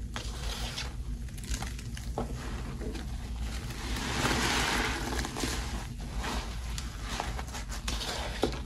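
Wet squishing and sloshing of a frothy mix of Pine-Sol, Lestoil and Murphy Oil Soap, with small scattered clicks. A louder stretch of hissing, splashing froth comes about four to five seconds in.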